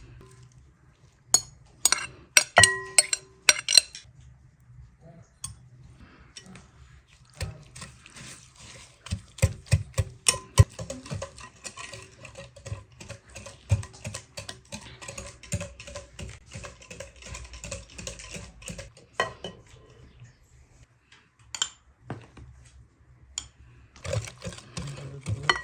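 Kitchen utensil clinking and scraping against a mixing bowl as ingredients are mixed into a batter. There are scattered knocks at first, then a long stretch of quick, rapid clicks with a scraping hiss, and a few more knocks near the end.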